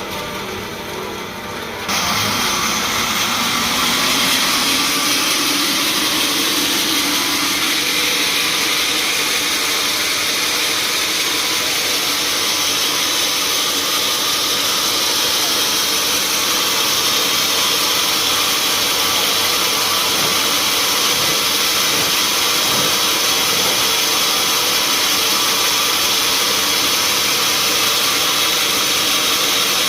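A sawmill saw comes on with a sudden jump in level about two seconds in, then runs loud and steady.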